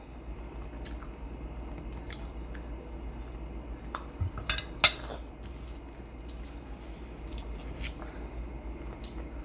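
Eating sounds: soft chewing and scattered small clicks of cutlery or dishes, with a quick cluster of sharper clicks and knocks about four to five seconds in, over a steady low hum.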